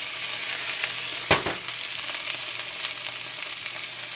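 Minced pork and garlic sizzling in a hot cast-iron pan as they are stirred, with one sharp knock a little over a second in.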